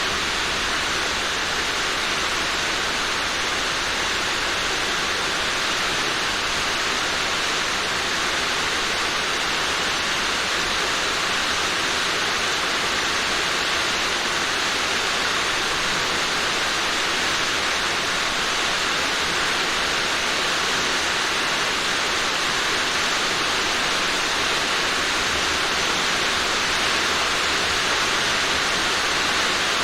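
Steady heavy rain falling on a roof, a constant dense hiss with no single drops standing out.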